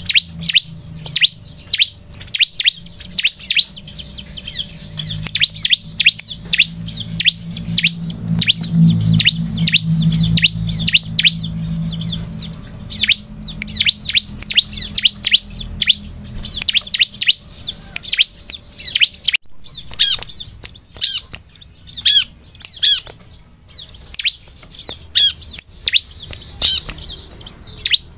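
Bar-winged prinia (ciblek) calling in a rapid, sustained run of sharp downward-sweeping chirps, several a second, broken by a short pause about two-thirds of the way through.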